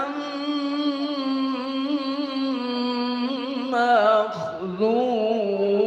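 Male Quran reciter chanting in drawn-out, melodic tilawah style, holding a long vowel with ornamental melismatic turns. A short break a little over four seconds in, then the note rises and continues.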